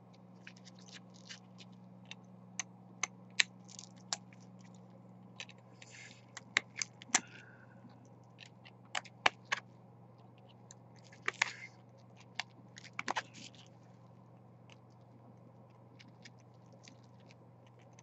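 Scattered small clicks, snaps and short scrapes as support material is picked and broken off a 3D-printed plastic part with needle-nose pliers, growing sparser toward the end. A low steady hum runs underneath.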